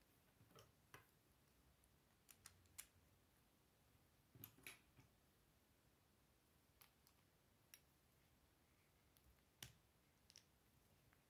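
Plastic Lego bricks being handled and pressed together, a scattering of faint, sharp clicks at irregular moments.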